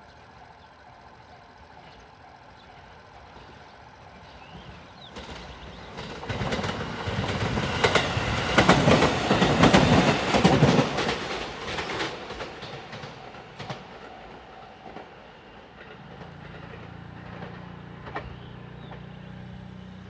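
Electric passenger train passing close by a level crossing: it builds from a few seconds in, is loudest about halfway with a rapid clatter of wheels over rail joints, and dies away a few seconds later. Level-crossing warning bells ring steadily under the approach.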